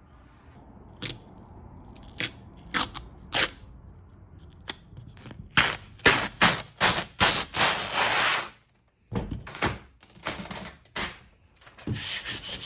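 A series of sharp clicks and knocks from something being handled: a few spaced single clicks, then a fast run of them for about three seconds, a short silence, and more clicks near the end.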